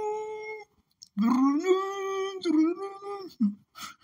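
A voice singing long held notes without words: a short one, then a longer one that slides up and wavers. A few short vocal sounds follow near the end.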